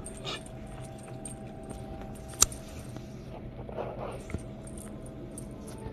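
Small bell on a dangling cat wand toy jingling and ticking lightly as a kitten bats at it, with one sharp click about two and a half seconds in.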